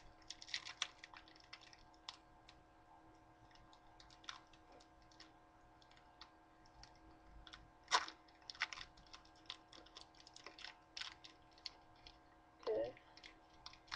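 Scattered light crinkles and clicks of a Pokémon booster pack's foil wrapper being handled and torn open, with a sharper crackle about eight seconds in.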